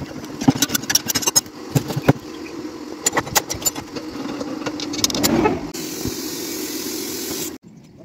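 Metal clicks and clanks of a tyre lever working the inner tube out of a spoked wheel's rim and tyre during a puncture repair, over a steady motor hum. About six seconds in, a steady air hiss runs for about two seconds, then cuts off suddenly.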